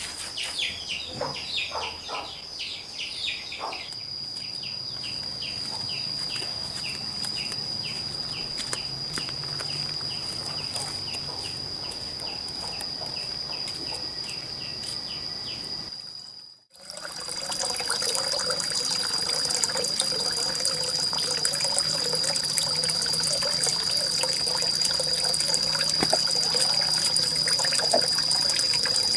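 Rapid chirping of insects and birds over a steady high-pitched insect drone. About two-thirds of the way through, this changes abruptly to the louder, steady sound of water running and trickling.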